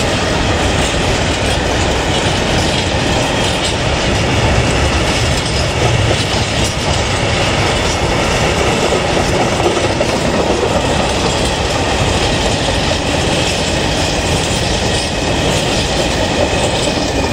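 Freight train of open wagons rolling past: a steady rumble and clickety-clack of wheels over the rails, with a thin wheel squeal at times, as the last wagons go by.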